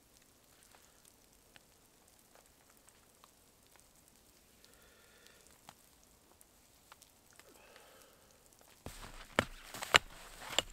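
Hatchet chopping at a dead branch lying in snow: about three sharp blows near the end, the middle one the loudest. Before them, only faint scattered ticks over a low hiss.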